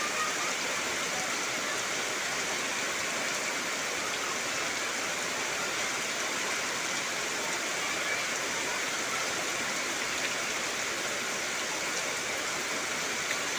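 Heavy rain falling steadily: a dense, even hiss that holds at one level throughout.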